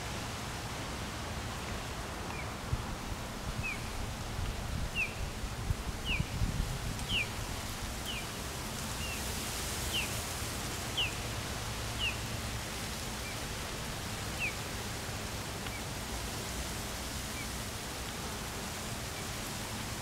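A bird calling a series of short, downward-slurred notes about once a second, which fade out after about fifteen seconds, over a steady low hum and background hiss.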